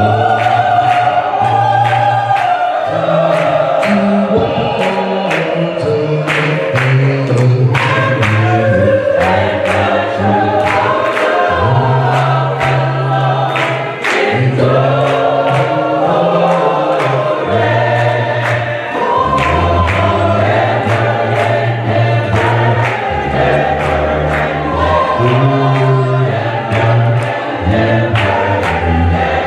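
Gospel choir singing with band accompaniment: a heavy bass line under the voices and a steady percussive beat.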